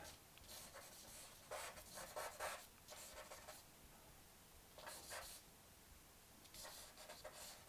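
Charcoal stick scratching on drawing paper in a series of faint, short strokes with brief pauses between them.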